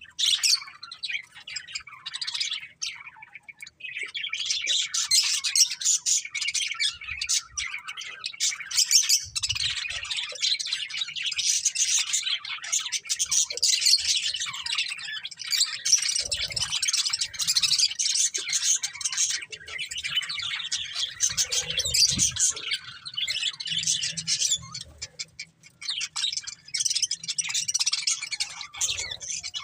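Budgerigars chirping and chattering in a rapid, continuous stream of high twittering calls, with a brief lull a few seconds in.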